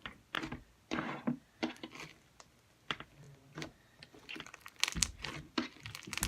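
Slime with clay and tiny beads being squished by hand, popping its air bubbles in a run of irregular small clicks and crackles. The clicks grow denser and louder near the end, with a low thump about five seconds in.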